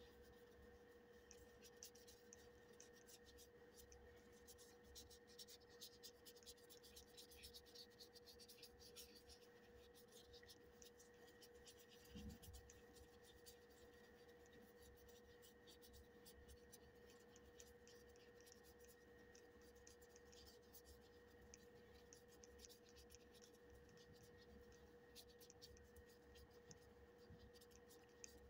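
Faint scratching of a brush pen's tip across paper in quick scribbling strokes, over a steady faint tone, with a soft low bump about twelve seconds in.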